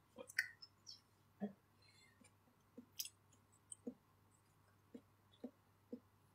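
Near silence: room tone with a faint steady hum and about eight faint, soft, short clicks scattered through it.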